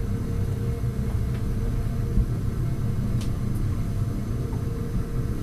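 A steady low rumbling drone with a faint steady hum on top.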